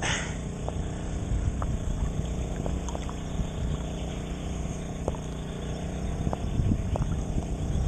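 Small waves lapping and sloshing against a camera held at the waterline beside a sailboat's hull. A steady low hum runs underneath, with a few light clicks.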